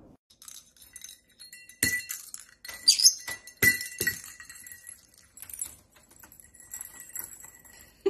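A peach-faced lovebird knocking its toys about: a few sharp clinks and taps of small hard objects, bunched between about two and four seconds in, over a faint steady high ringing.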